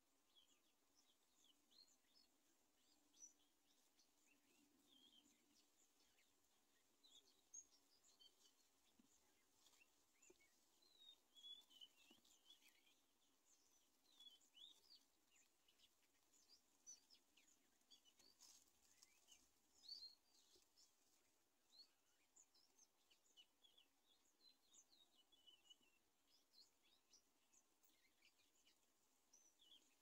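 Faint bird chirping: many short, high calls scattered irregularly throughout, over a low steady hiss.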